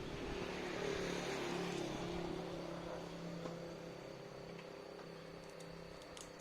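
A motor humming steadily with a whirring noise over it, slowly getting quieter.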